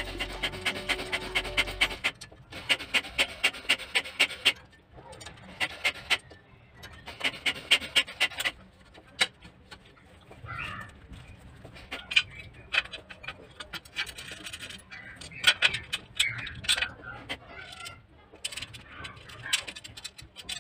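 Hand screwdriver clicking rapidly, about six clicks a second in runs of a few seconds, as screws are driven into an adjustable metal microwave wall bracket. Later come scattered clicks and light knocks of the metal bracket parts being handled. Music plays for the first two seconds.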